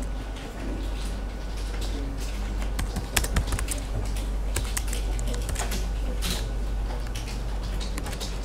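Typing on a computer keyboard: irregular keystrokes over a steady low hum.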